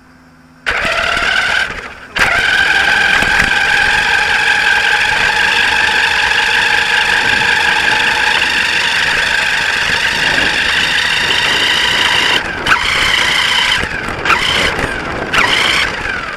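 Radio-controlled touring car's motor and drivetrain whining at a steady high pitch while it drives on tarmac, picked up by a camera mounted on the car itself. The whine starts suddenly about a second in and dips briefly. Near the end it breaks into short bursts as the car slows and stops.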